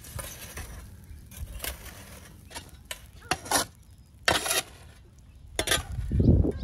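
Metal shovel scraping and pushing charcoal embers, ash and sandy dirt aside, in about six separate strokes with light clinking of the charcoal, then a heavier dull thump near the end.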